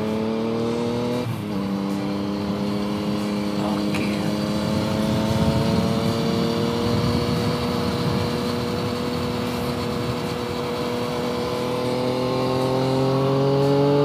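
Yamaha Tracer motorcycle engine under way, pitch dropping at an upshift about a second in, then climbing slowly and steadily as the bike accelerates in the next gear, over a steady rush of wind noise.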